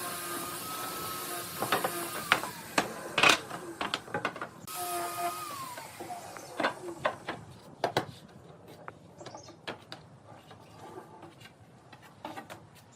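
A small electric power tool runs with a steady high whine and winds down twice as it is switched off, with sharp knocks and taps of wood being handled between and after.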